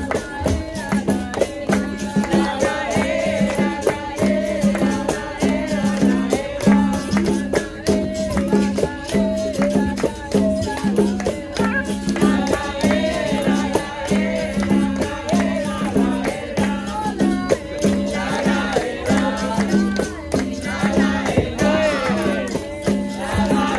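Capoeira roda music: berimbau with rattling caxixi and pandeiro tambourine keep a steady, repeating beat under group singing.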